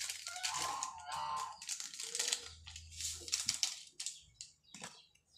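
Small plastic seasoning sachet crinkling and rustling in the hands as it is opened and emptied into the pot. It stops about four seconds in.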